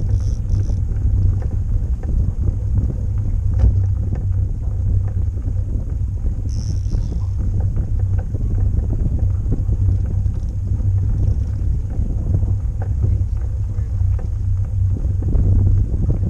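Wind buffeting the microphone on an open boat deck: a steady, loud low rumble.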